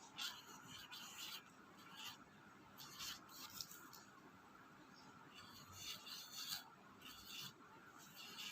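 Faint scratching of a pen drawing on a surface, in short irregular strokes with brief pauses between them.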